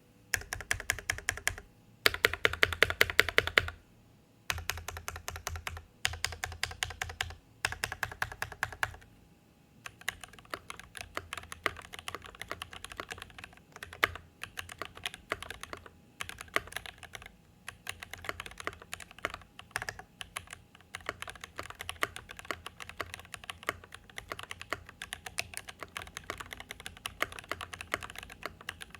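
Noir N1 Pro custom mechanical keyboard with lubed, filmed Durock EV-02 switches, lubed stabilisers, extra case foam and GMK keycaps being typed on. Five short bursts of rapid, evenly spaced key presses over the first nine seconds give way to steady, irregular typing.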